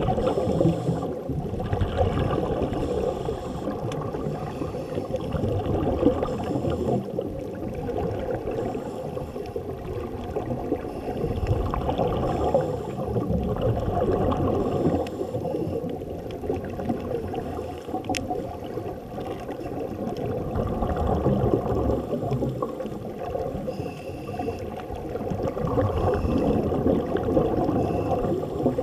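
Underwater sound heard through a camera housing: a muffled rumble with gurgling surges as the scuba divers breathe out bubbles through their regulators.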